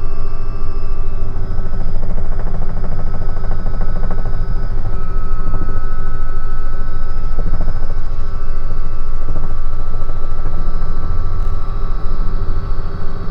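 Robinson R66 turbine helicopter heard from inside the cabin on a low final approach to land: a loud, steady rotor and engine drone with a steady high whine over it.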